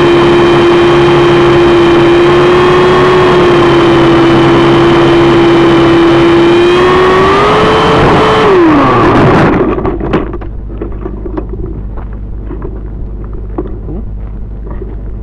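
Model helicopter's motor and rotor whining steadily, rising in pitch briefly, then spinning down and stopping about nine seconds in as it comes down. After that only a quieter low rumble with scattered clicks remains.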